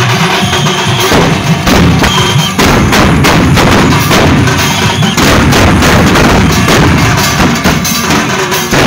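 A band of large double-headed drums beaten with sticks, many players striking together in a loud, dense, continuous rhythm.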